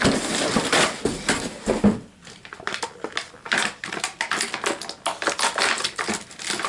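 Styrofoam packing being pulled apart and handled, crunching and crackling in quick irregular clicks as the brittle foam breaks up.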